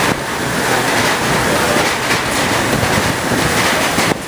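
Hurricane-force wind and driving rain, a loud, steady rush.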